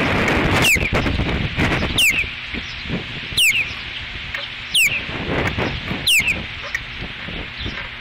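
Ospreys giving their alert call, raised at something flying overhead: five sharp, high whistles, each falling steeply in pitch, spaced about a second and a half apart. High wind buffets the microphone underneath.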